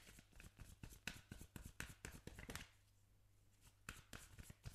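Oracle card deck being shuffled by hand: a quiet run of rapid, soft card clicks that stops for about a second after two and a half seconds, then starts again.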